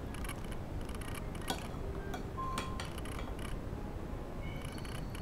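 Metal cutlery clinking against a white bowl during eating: two sharp clinks, about a second and a half and two and a half seconds in, over a steady background hiss.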